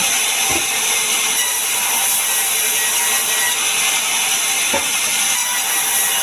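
Power saw cutting wood, a steady rasping buzz, with two short low knocks, one about half a second in and one near five seconds in.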